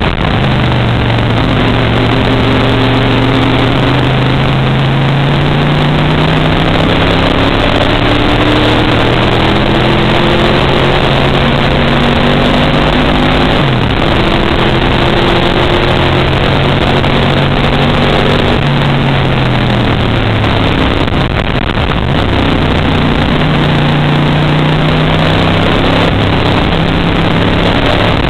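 Race car engine running hard, heard from inside the car, loud and constant with a steady rushing noise over it. Its pitch climbs slowly for long stretches, then drops sharply about halfway through and again a few seconds later, before climbing again near the end.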